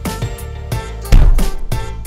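Music with a steady beat, and a loud low hit about a second in.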